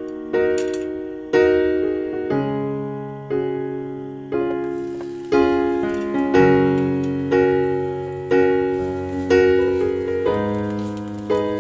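Background piano music: slow chords struck about once a second, each left to ring and fade before the next.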